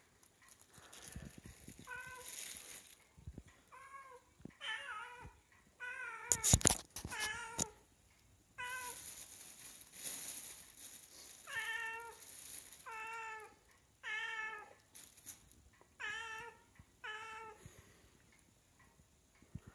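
Siamese cat meowing over and over, about eleven drawn-out meows, begging for the fish it has smelled. A brief loud knock comes about six and a half seconds in.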